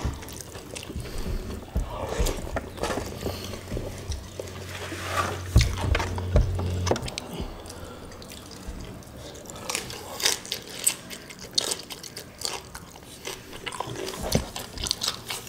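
Close-up eating sounds: wet smacking and chewing, with fingers squishing and scooping rice soaked in coconut-milk gravy, as irregular wet clicks. A low hum sounds under the first half.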